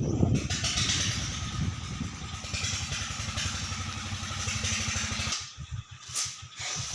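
Engine of a river sand-suction pump running steadily. About five seconds in, the steady sound drops away, leaving quieter, uneven sounds.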